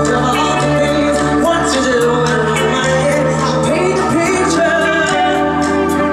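Live pop band playing a song, with a keyboard holding organ-like chords, steady drums and a voice singing over them.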